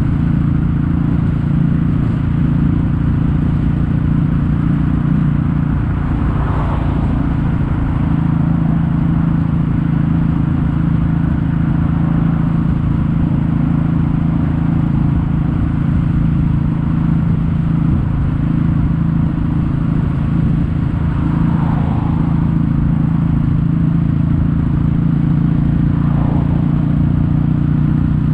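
Kawasaki W800 air-cooled parallel-twin engine running through Yamato stainless steel Cabton-style silencers at a steady cruise while riding, with a few brief swells in the sound along the way.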